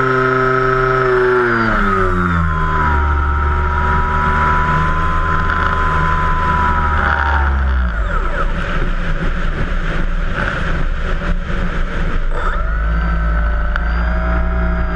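Electric motor and propeller of an RC Cessna 182 seaplane, heard from a camera on board. The whine drops in pitch as the throttle comes back about two seconds in and holds low. It cuts out around eight seconds in, leaving a rush of air noise as the model glides down. The motor comes back on at low power near the end.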